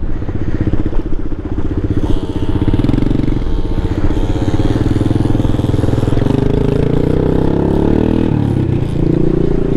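Honda Ruckus scooter's 49cc four-stroke single-cylinder engine running under throttle. Its pitch rises over the first few seconds, holds steady, then dips briefly near the end before picking up again.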